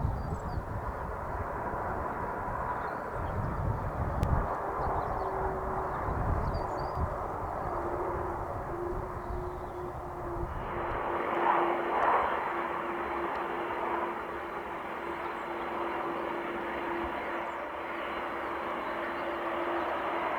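Four jet engines of a Boeing 747-400 freighter running steadily, heard from a distance as a hum with a held whine tone. Low rumble sits under it in the first half, then cuts out abruptly about eleven seconds in.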